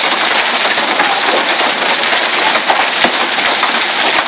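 Hail pelting down hard: a loud, dense, steady clatter of countless small hailstone impacts.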